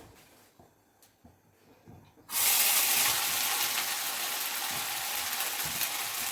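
Food going into hot oil in a pan, setting off a sudden loud sizzle about two seconds in that keeps up as a steady hiss of frying.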